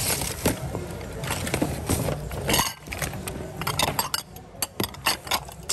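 Hard objects clinking and knocking together as items in a thrift-store bin are rummaged through: a run of short sharp clicks, more spaced out and distinct in the second half, over a low rumble.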